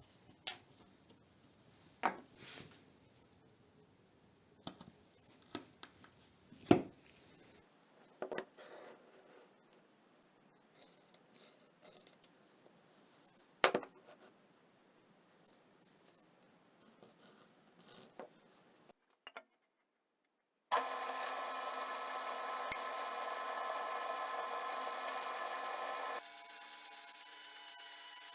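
Tools and wood being handled: scattered sharp knocks, taps and scraping. After a brief gap, a steady louder machine tone with a whine starts up and runs on, shifting in pitch once near the end, like a power tool's motor running.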